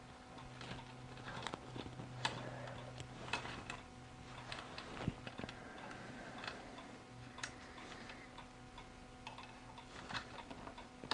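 Small irregular clicks and taps of metal camera-rig parts being handled and screwed together, over a faint steady hum.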